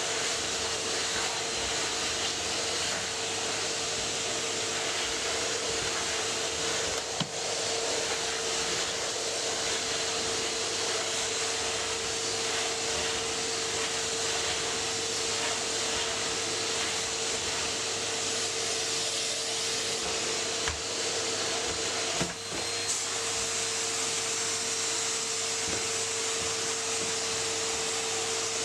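Vacuum cleaner running steadily, its motor holding one constant hum over a rushing airflow noise, with a few brief knocks along the way.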